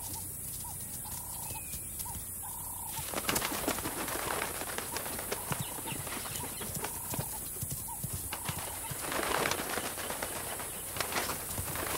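African wild dogs rushing through dry grass and vultures' wings flapping as the birds are chased off a kill. It starts quieter, with faint short repeated notes, and from about three seconds in turns to a busy rustling, thudding clatter, with a heavier rush of flapping about nine seconds in.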